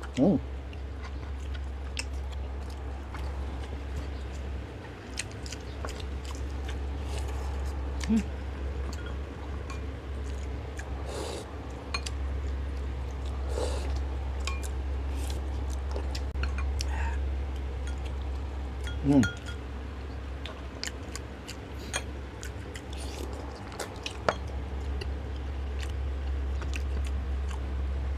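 Close-up eating sounds: chewing and lip-smacking with scattered small clicks, as two people eat boiled pork knuckles and fried hairtail by hand. A few short vocal sounds come from the eaters, the loudest about 19 seconds in, over a steady low hum.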